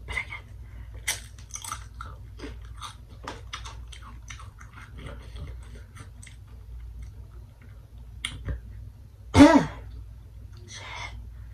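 Paqui Haunted Ghost Pepper tortilla chips being chewed close to the microphone: a run of short, crackly crunches, with one louder crunch about nine seconds in as a fresh chip is bitten.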